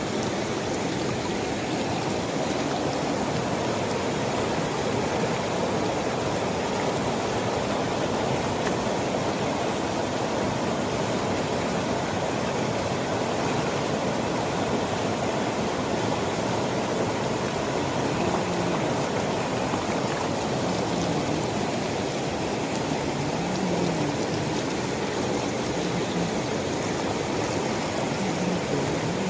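Rushing water of a monsoon waterfall, a steady, unbroken noise of falling and flowing water.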